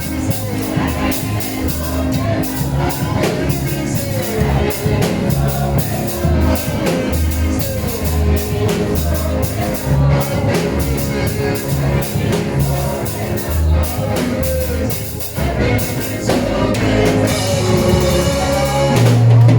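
Praise music from a church band: drum kit, bass and guitar playing a steady beat, with some singing in the mix. The music dips briefly about fifteen seconds in, then carries on.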